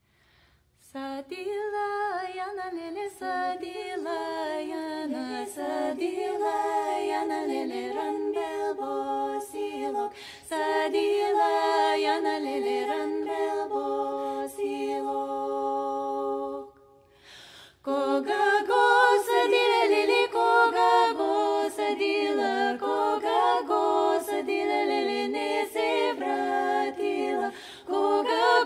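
A cappella vocal group singing in harmony, several voices moving together without instruments. The singing starts about a second in and breaks off briefly a little past halfway before going on.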